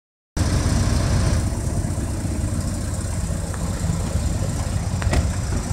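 Vehicle engine idling: a steady low rumble, with one sharp click about five seconds in.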